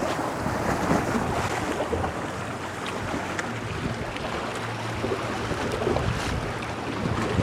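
Sea waves washing, with wind buffeting the microphone.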